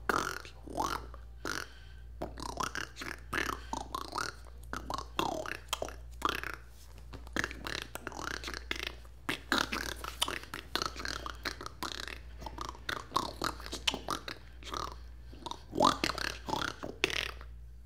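A person's voice making quick, short sounds that are not words, over a steady low hum.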